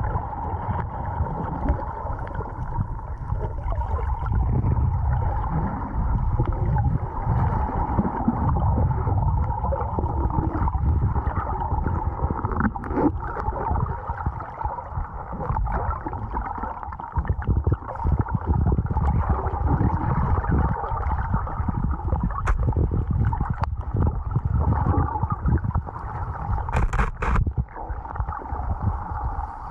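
Muffled underwater sound from a camera held below the surface in shallow surf: a steady low churning rumble of moving water, with a few sharp clicks now and then.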